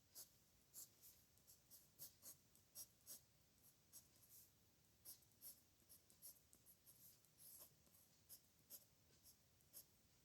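Pen writing on paper, faint: short, irregular scratching strokes of the pen, about two to three a second.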